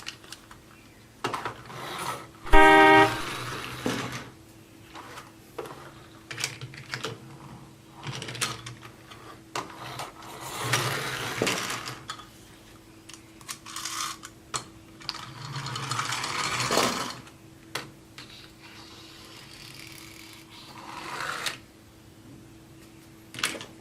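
Plastic toy car being handled: scattered clicks and knocks, a short horn-like beep about three seconds in, and two longer stretches of scraping or rolling noise.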